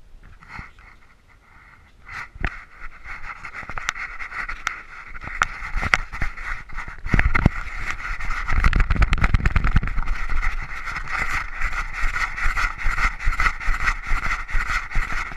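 A collar-mounted GoPro jostling on a running Labrador: sharp knocks of the camera bouncing with each stride, several a second and steadier in the second half, over a steady rushing noise. A low rumble, like wind on the microphone, swells in the middle.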